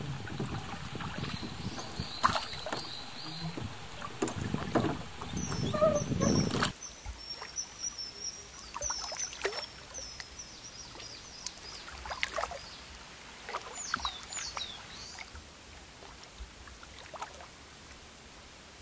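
Wind on the microphone and water noise from a small boat moving on a lake, which cuts off abruptly about seven seconds in. A quieter woodland background follows, with scattered short, high bird chirps.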